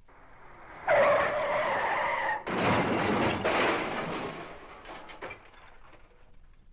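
Tyre screech sound effect, a squeal with several held pitches lasting about a second and a half, cut off by a sudden noisy crash that fades out over the next two seconds.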